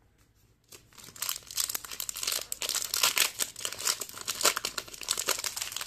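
Foil trading card pack wrapper crinkling and tearing as it is pulled open by hand. Starts about a second in, then a dense, rapid crackle that continues.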